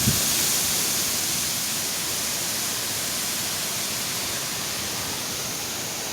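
Steady hiss of hurricane wind and rain, easing slightly in loudness.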